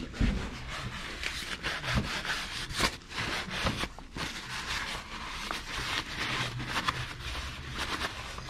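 Crumpled paper towel rubbing and wiping against an oil filter, a steady rustle broken by many short clicks and knocks from handling.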